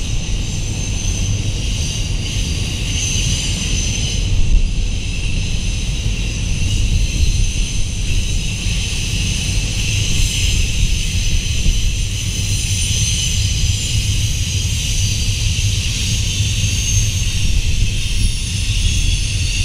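Cars of a passing intermodal freight train rolling by in a steady low rumble, with a steady high hiss above it.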